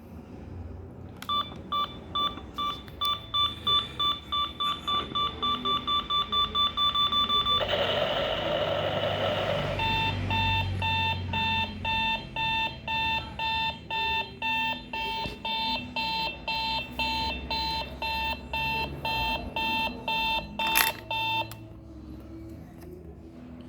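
Novelty dynamite alarm clock going off: electronic beeps that speed up over about six seconds, then a couple of seconds of rushing noise, then a lower-pitched beeping at about two beeps a second. It stops with a click about a second before the end.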